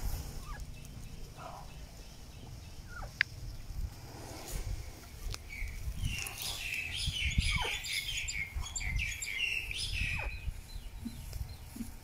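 Birds chirping and chattering in a busy burst from about halfway through, with a few single calls before it, over low, irregular rustling and thumping as an elephant handles and eats fresh grass.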